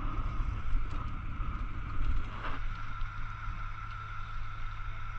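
Water jetting from a fire truck's ladder-pipe nozzle as a steady spray, over a steady low rumble and a faint steady whine. There is a brief louder rush about two and a half seconds in.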